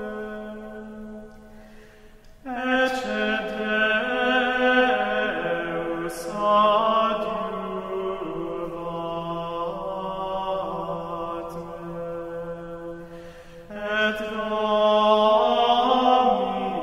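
Slow vocal chant in long held notes that step from pitch to pitch. A new phrase begins about two and a half seconds in and another near the end.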